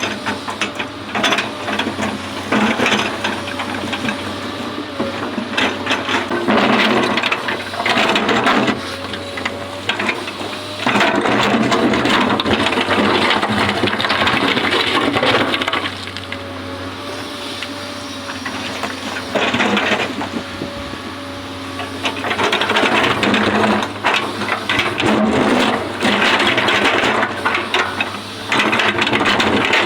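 Excavator working, its engine and hydraulics running in loud, rattling spells that swell and drop again, with a quieter stretch about halfway through.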